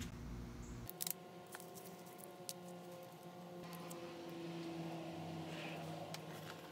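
Faint handling of a glue bottle, with a few sharp clicks about a second in and light ticks as dried glue is picked off the nozzle, over a faint steady hum.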